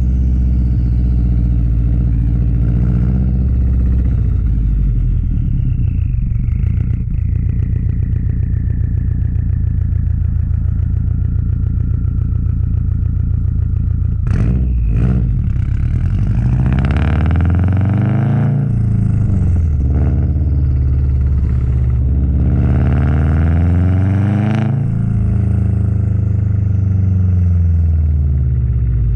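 Subaru WRX STi's turbocharged flat-four engine and exhaust while driving: a steady low note at first with a faint falling whistle, then a pair of short sharp sounds about halfway through, and twice the engine climbs in pitch under acceleration and drops back.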